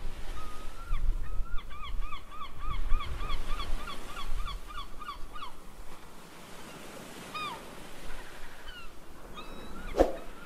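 A rapid run of high honking calls, about three a second, through the first half, then a few single calls, over a low rumble; a sharp knock near the end.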